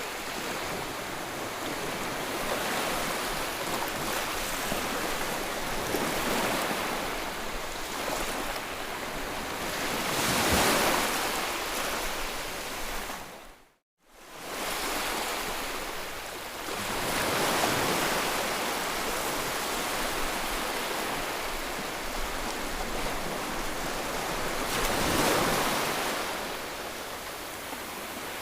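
White-noise sleep sound: a steady rushing hiss that swells and ebbs like breaking surf every seven seconds or so. About halfway through it cuts out to silence for a moment, then fades back in.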